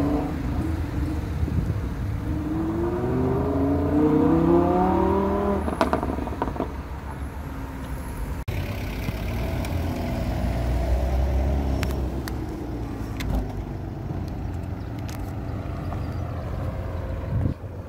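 A supercar's engine accelerating hard, its pitch rising steadily for about four seconds before it stops. After a break a few seconds later, a low engine rumble and street traffic noise go on, with a few sharp clicks.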